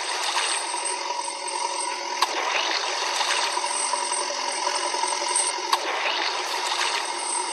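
Small electric gear motors of a toy remote-control excavator whirring steadily, with a rattle and a sharp click about two seconds in and another near six seconds.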